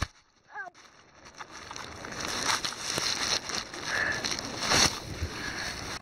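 Flowing creek water rushing under the knocks and rustles of a phone camera being handled close to the microphone, after a near-silent break at the start.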